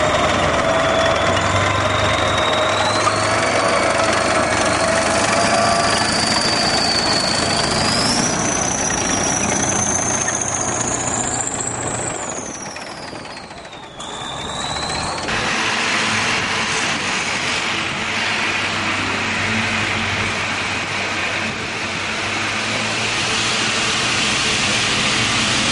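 A tracked self-propelled gun drives past with its engine running and its tracks clattering, over a high whine that rises and falls in pitch. About halfway through, the sound drops away briefly, then gives way to a steadier, more even vehicle noise.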